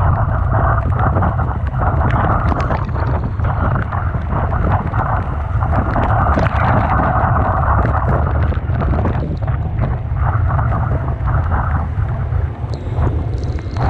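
Typhoon wind buffeting the microphone in a steady, heavy low rumble, over the noisy wash of rough sea and surf, with scattered crackles throughout.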